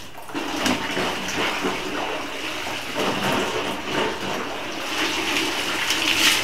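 Hand-washing clothes: a soaked dark garment lifted and dunked, water streaming and splashing off it onto a tiled floor. Several splashes, the loudest near the end.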